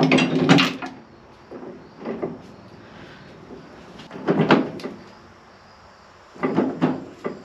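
Clunks and knocks of a finish mower's PTO driveshaft yoke being worked onto a Ford 8N tractor's PTO shaft, whose locking pin is a little stuck. There is a loud group of knocks at the start, a single knock about two seconds in, another group about four seconds in, and a few more near the end.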